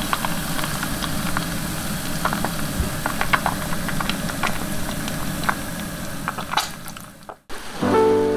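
Battered kisu (Japanese whiting) fillets deep-frying as tempura in a pot of hot oil: steady bubbling with scattered small pops and crackles. It fades out about seven seconds in, and music starts just before the end.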